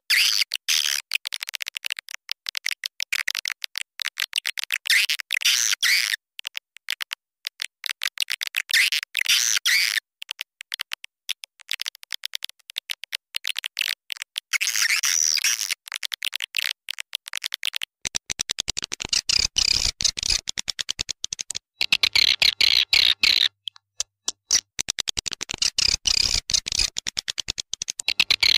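Swiftlet lure-call recording: dense, high twittering swiftlet chirps in bursts of a few seconds with short breaks. About two-thirds of the way through it turns harsher and more clicking.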